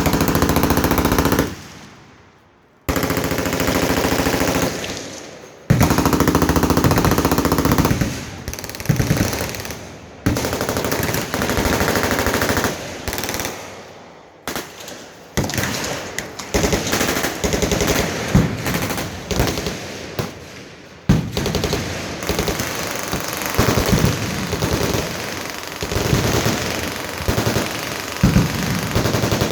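Many machine guns firing at once on a firing line: long fully automatic strings overlapping one another, with brief lulls, one about two seconds in and another about five seconds in.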